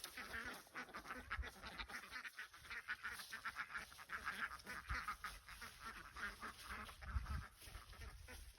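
A flock of domestic ducks quacking in a dense, overlapping chatter, with a few low bumps partway through.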